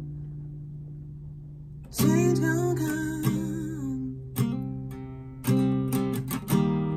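Acoustic guitar, capoed at the third fret, strummed. A chord rings and fades for about two seconds, then fresh strums come about two, four and a half and five and a half seconds in, with quicker strums near the end.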